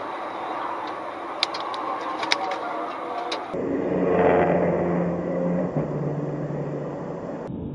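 Highway traffic and road noise heard from a moving car, with a few sharp clicks in the first half. After a cut, a sports car's engine runs hard close by, growing louder as it draws alongside, its pitch dropping once about two-thirds of the way through.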